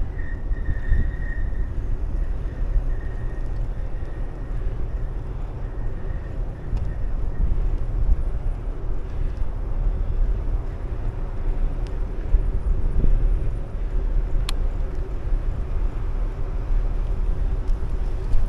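Wind rushing over the microphone of a camera riding along a paved bike path, with a steady low rumble from rolling over the asphalt and a faint steady hum. A single sharp tick sounds about two-thirds of the way through.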